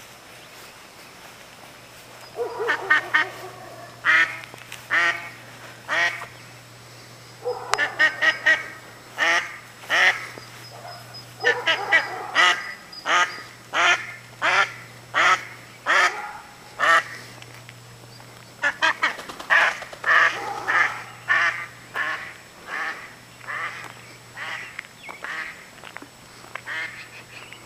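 Mother duck quacking over and over in runs of short calls, several a second, with short pauses between the runs.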